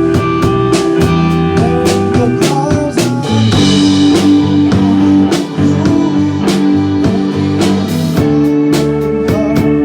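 Rock band music: guitar notes over a drum kit keeping a steady beat.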